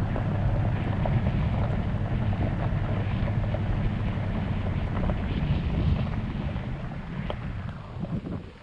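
Toyota Tundra TRD Pro pickup driving slowly on a gravel road: a steady low rumble of engine and tyres on gravel, with wind on the microphone and a few scattered small ticks. It gets quieter near the end.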